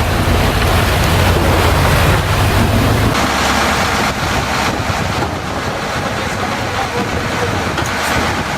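Fishing boat's engine running under a haze of wind and sea noise; the low engine rumble drops away suddenly about three seconds in, leaving wind and water.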